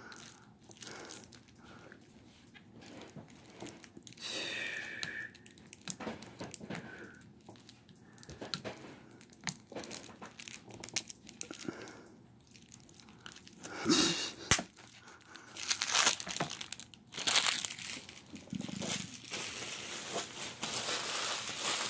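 Clear plastic shrink wrap on a deck of cards being picked at, torn and crinkled by fingers, a struggle to get it open. Soft scratching and picking at first, then louder crinkling bursts in the second half and steadier crinkling near the end.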